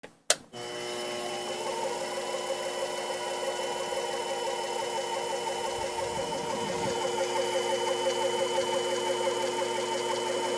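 Sherline mini lathe switched on with a couple of clicks, then its motor and spindle running steadily with a whine and a fast flutter as a 3/8-inch drill bit is fed into the spinning end of the metal bar without a starter hole. A low rumble comes in briefly a little past the middle, and the bit is wandering off centre.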